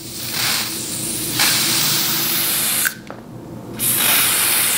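Wig Dealer lace spray hissing from its aerosol can in a long spray of about three seconds, stopping briefly, then starting again near the end, as it is sprayed along the hairline to lay down wig lace.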